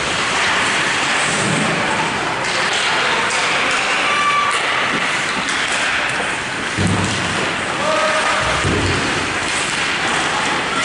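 Steady noisy ice-rink ambience during a youth hockey game: skates and sticks on the ice with scattered distant shouts. Two low thuds land about 7 and 9 seconds in.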